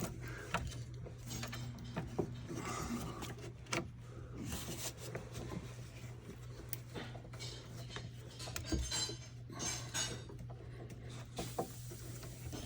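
Light metal clicks, clinks and scraping inside a Jeep TJ Wrangler door as the latch rods are worked into their small retaining clips, scattered irregularly.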